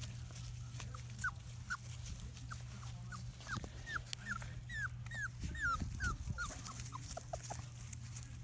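Three-week-old Labrador retriever puppies whimpering: more than a dozen short, high-pitched squeaks, each bending in pitch, from about a second in until near the end.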